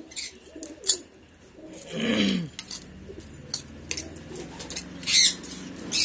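A fork clinking and scraping in a steel bowl as egg food is mashed, over birds calling, with one low call falling in pitch about two seconds in and a shrill call about five seconds in.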